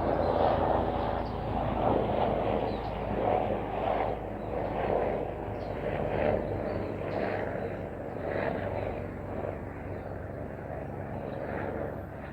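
An engine droning steadily, slowly fading away over the second half.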